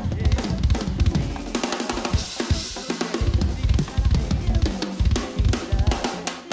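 A drum kit played in a busy groove: bass drum, snare and hi-hat strokes several times a second, with a cymbal wash swelling a couple of seconds in.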